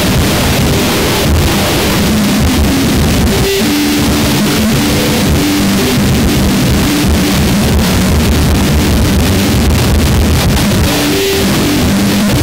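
Harsh noise music: a dense, loud, unbroken wall of distorted noise. About three and a half seconds in, a droning layer of low pitched tones enters beneath the noise.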